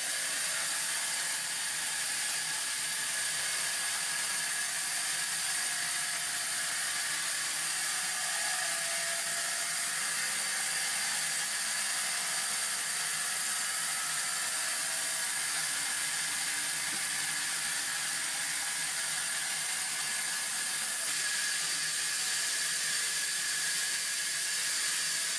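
Sawmill band saw running and cutting lengthwise through a timber block: a steady hiss with a thin high whine that holds even throughout.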